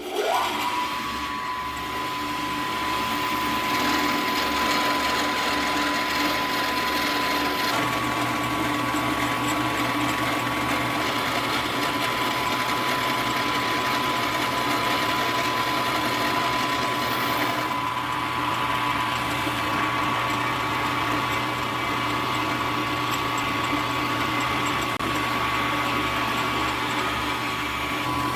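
Milling machine starting up and running steadily with a high whine as its cutter takes a cut along a thin workpiece. The whine steps up slightly in pitch about eight seconds in.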